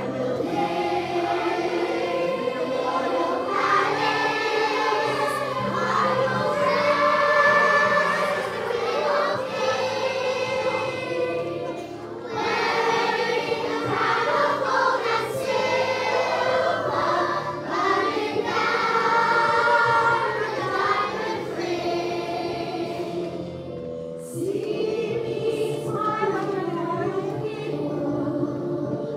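Large children's choir of schoolgirls singing together in sustained phrases, with short breaks between phrases about 12 and 24 seconds in.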